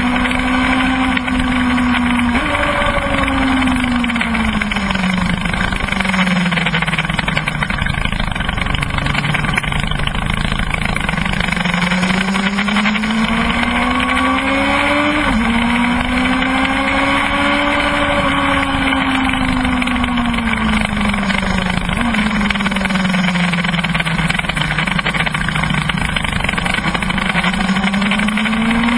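Kawasaki ZX-12R's inline-four engine under load on track, its pitch rising and falling as the rider accelerates and backs off through the corners. The pitch jumps abruptly about two and a half seconds in and again about halfway through, at gear changes.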